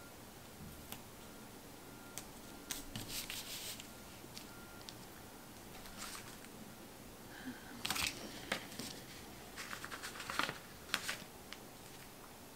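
Quiet handling of planner sticker sheets: paper rustling as stickers are peeled and pressed down, with scattered light clicks and taps in a few short clusters.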